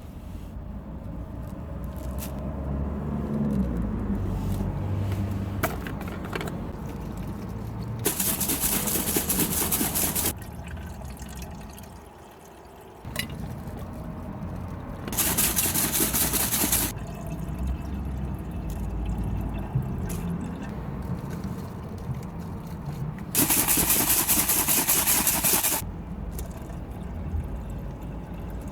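Three separate pours of about two to two and a half seconds each, starting and stopping sharply, over a steady low rumble.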